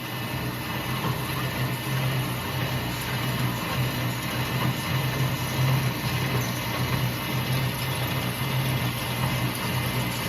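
CNC U-type drilling machine for rebar couplers running with a steady low hum.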